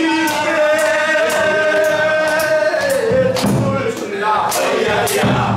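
Group of voices singing a Korean folk song (minyo) in chorus, holding one long note for about three seconds before moving on. Accompanied by steady hand-struck buk barrel-drum beats and acoustic guitar.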